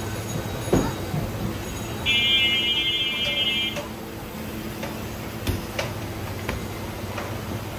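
A high, steady electronic buzzing tone sounds for a little under two seconds, about two seconds in. Beneath it is the steady hiss and hum of a street food stall's wok of oil frying battered potato chops, with a few clinks and knocks.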